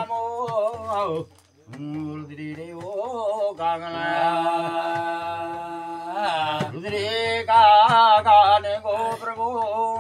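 A man's voice singing a Kumaoni jagar chant, with a short break about a second and a half in and a long held note in the middle, then louder ornamented phrases near the end.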